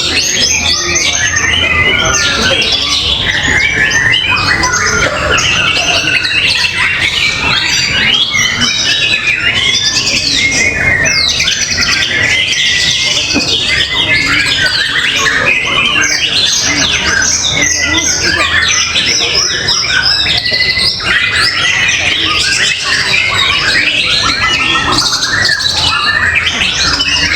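Several caged songbirds singing at once in a songbird contest, a dense unbroken tangle of fast, overlapping phrases, trills and chirps.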